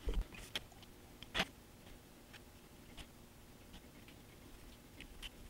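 A few faint clicks and taps of small craft materials being handled at a workbench, the loudest about a second and a half in, over quiet room tone.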